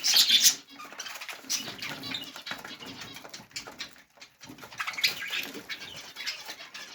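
Budgerigars chirping and chattering in bursts, loudest in the first half-second and again around five seconds in, with quieter clicks and scratching between.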